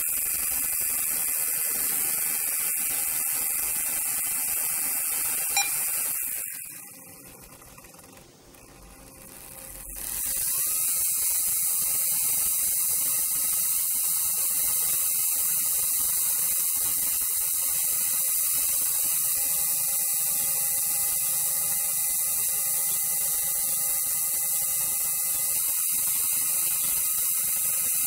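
Small electric motor and gears of a Roco H0 Mallet model locomotive whirring steadily on a roller test stand, driven from a digital decoder's motor output. After a click about five and a half seconds in, it winds down almost to a stop, then runs up again about ten seconds in and keeps whirring.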